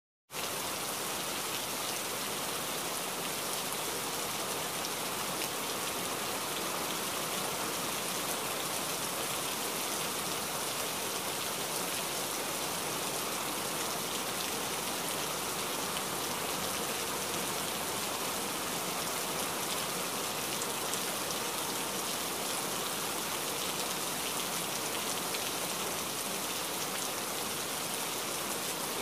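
Steady rain falling, an even hiss of many drops. It starts abruptly out of silence just after the start.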